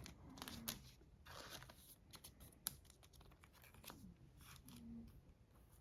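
Faint rustling and light clicks of trading cards and their packaging being handled, scattered through a near-silent room.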